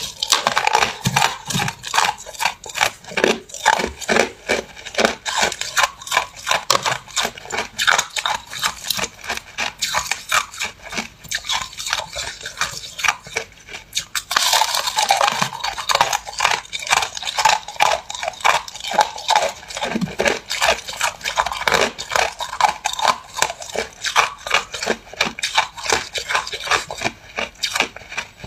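A person biting and chewing a clump of packed crushed ice: a rapid, unbroken run of crisp crunches, with a fresh hard bite about halfway through.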